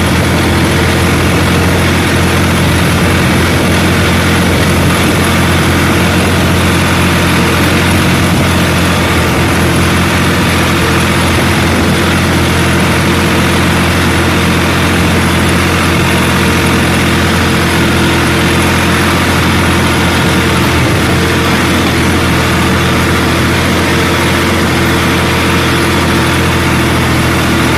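Tractor diesel engine running steadily and loud, heard close from the driver's seat as the tractor pulls a disc harrow across the field.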